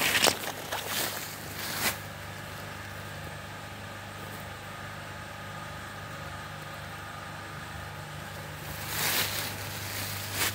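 Ponsse Ergo forest harvester's diesel engine idling steadily. Footsteps through snow and brush sound near the start and again near the end.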